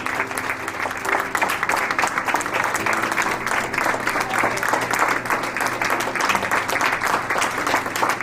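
A crowd applauding, many hands clapping continuously.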